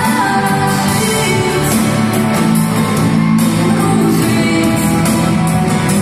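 A pop song sung into microphones to a backing track, amplified through a PA in a large hall.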